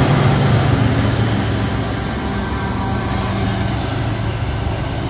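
A CSX diesel locomotive running as a mid-train distributed-power (DPU) unit passes close by, its engine drone steady and loud over the rumble of the train rolling on the rails, easing off a little as it moves on.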